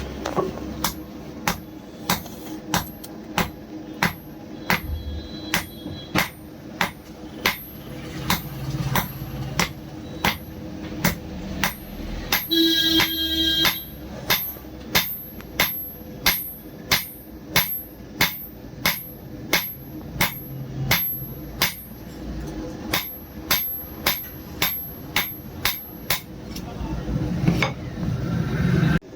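Blacksmith's hand hammer striking steel from an old bearing on an anvil while forging a kukri blade, in steady blows about two a second that ring sharply. A brief horn-like tone fills a short pause about halfway through.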